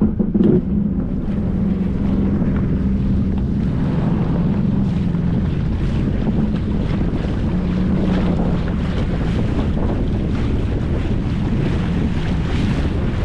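Boat motor running underway, a steady low hum, with wind buffeting the microphone and water rushing past. It comes in suddenly at the start.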